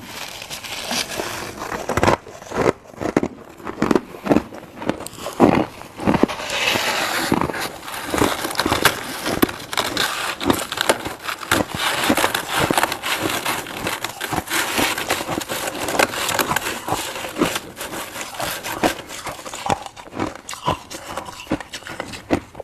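Crunchy humidifier-built freezer frost being bitten and chewed fast: a dense, irregular run of loud crunches and cracks, thickest in the middle stretch.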